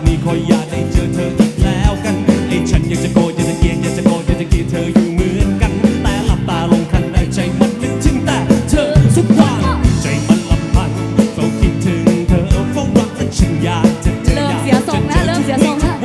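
Live band music: a man singing over a strummed acoustic guitar and a drum kit keeping a steady beat.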